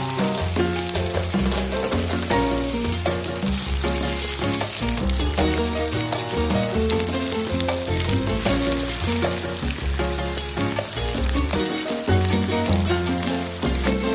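Food frying in hot oil in a pan, a steady sizzle with crackling, under background music with a moving bass line.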